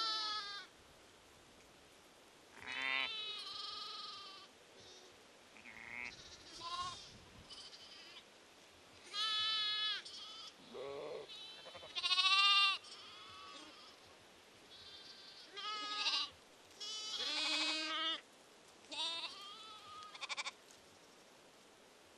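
A flock of sheep and lambs bleating, about a dozen calls that overlap in places and come with short pauses between them. Some calls are high and thin, others deeper.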